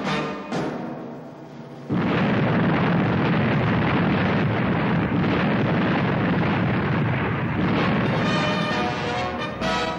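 Explosion sound effect: about two seconds in, a loud blast starts suddenly and continues as a steady, dense roar for about six seconds. It is set between stretches of orchestral theme music, which tails off before the blast and comes back near the end.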